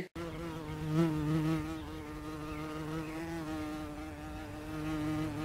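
A flying insect buzzing: one steady droning note that wavers slightly, swelling a little about a second in and again near the end.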